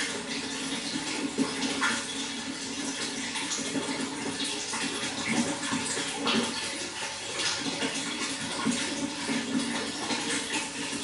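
Water flowing steadily, with frequent small irregular splashes and gurgles.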